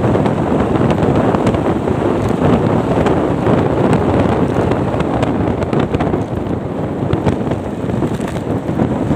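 Loud, steady wind rush buffeting the microphone of a phone held up by a motorcycle rider on the move.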